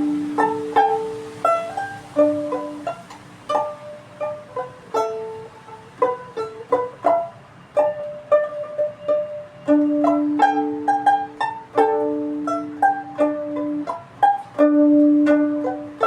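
Solo string instrument music: a slow melody of plucked notes that ring out and fade, over longer held low notes.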